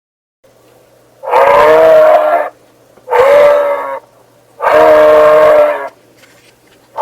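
Custom monster vocal sound effect: three drawn-out, pitched calls with a whistle-like tone, the middle one shorter. A faint low hum sounds under and between them.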